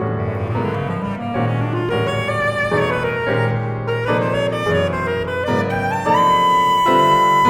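Bass clarinet and piano playing a jazz composition: the bass clarinet's melodic line moves upward over piano chords and settles on a long held note about six seconds in.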